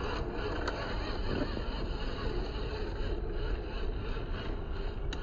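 WPL B24 RC truck's small electric motor and gearbox running steadily as it crawls over dirt and through plants, with a couple of light clicks.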